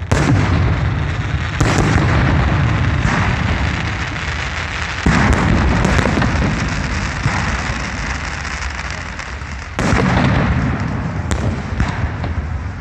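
Fireworks salute bursting: several loud booms, each followed by a long rumble that slowly fades before the next shell goes off.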